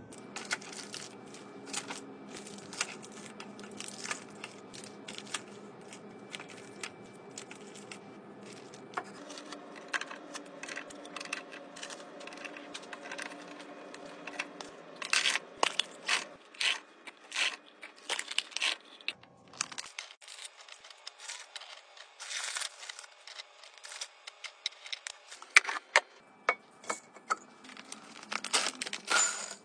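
Restocking handling sounds: plastic snack wrappers crinkling, and packets and other items tapping and clattering into clear plastic bins and a glass jar. A long run of short sharp clicks and rustles that grows louder and busier about halfway through.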